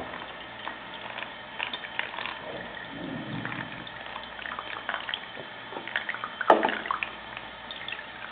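Tap running as water fills a paper water bomb, with scattered small clicks and one sharp knock about six and a half seconds in.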